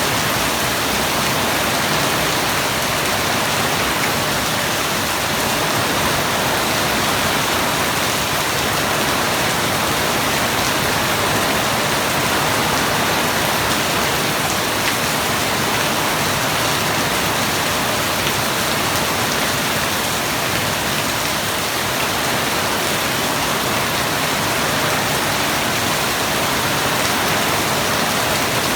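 Steady rain falling, an even dense hiss of drops on surfaces that neither builds nor eases.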